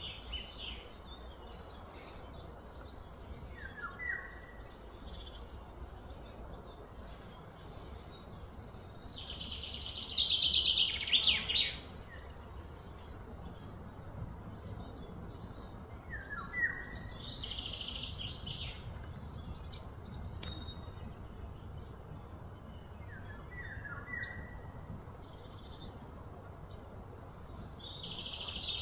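Birds calling and chirping, with short downward-slurred calls every several seconds. A louder buzzing trill swells for a few seconds about nine seconds in and cuts off, then starts again near the end.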